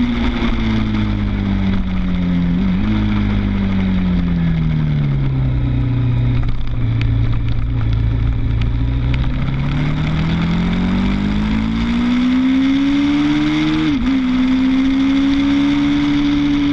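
Suzuki TL1000's V-twin engine, close to an onboard camera. The engine note falls as the bike slows for a corner, with a downshift about three seconds in, and stays low through the corner. It then rises under acceleration to a sharp upshift near the end, with wind rushing over the microphone throughout.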